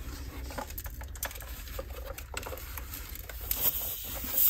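Light clicks and rattles as a handheld battery air compressor and its hose are handled at a tyre valve, the compressor motor already stopped at its set pressure. A short hiss comes near the end.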